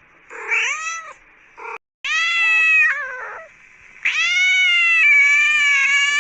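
A cat meowing three times: a short meow, then a meow of about a second that trails off, then a long, drawn-out meow held steady.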